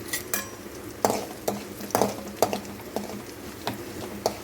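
A spoon stirring in a pan of frying tempering, scraping and knocking against the pan about twice a second over a light sizzle of oil.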